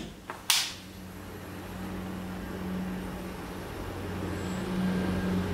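Gas blowtorch lighting with a sharp pop near the start, then burning steadily: a rushing flame noise with a low hum that slowly grows louder.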